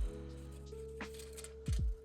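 Background music: held synth notes over a few deep, falling bass hits.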